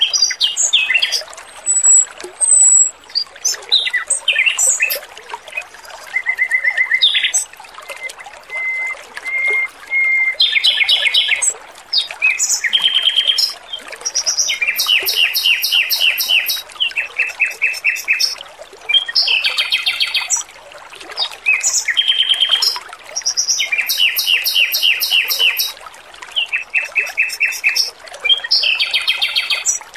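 Male Pekin robin singing, repeating quick trilled phrases separated by short pauses, over a steady background of trickling water.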